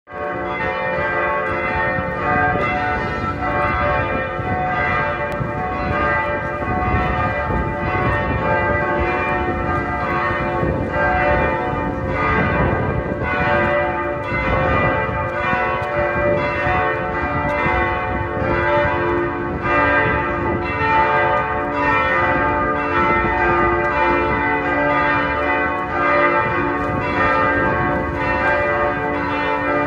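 Church bells pealing: several bells struck over and over, their tones overlapping and ringing on without a break.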